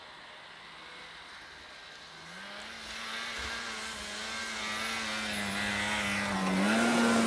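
Snowmobile engine running at speed as it approaches, getting steadily louder over about five seconds; its pitch holds steady, dips briefly and then rises as the throttle opens near the end.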